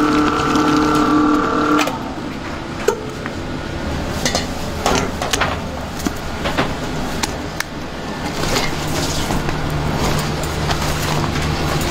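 Large stand mixer with a flat beater running with a steady whine, which stops about two seconds in. After it, a low kitchen hum stays, with scattered knocks and scrapes of the mixture being scooped out of the steel mixer bowl by hand.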